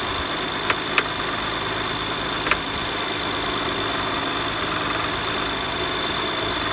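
BMW 335i straight-six idling steadily, with three sharp clicks, two close together about a second in and one at about two and a half seconds. The clanking, ticking rattle was traced to the power steering pulley rattling, though the pulley could not be seen moving.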